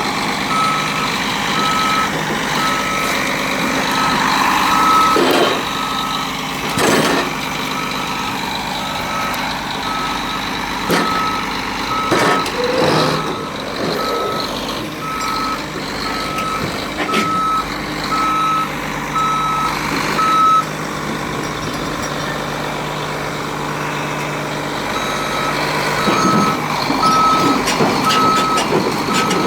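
Cat 352 excavator's travel alarm beeping in a steady regular rhythm over its running diesel engine as it tracks off the trailer, with occasional metal clanks. The beeping stops about two-thirds of the way in and starts again a few seconds later.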